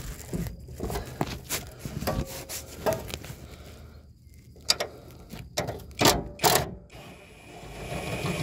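Metal hand tools and bolts clinking and knocking against a car's steel transmission crossmember: irregular sharp clicks, the loudest two about six seconds in.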